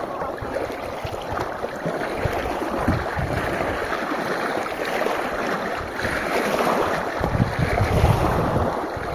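Strong wind blowing over the microphone: a steady rushing noise with low gusty rumbles, heaviest about three-quarters of the way through.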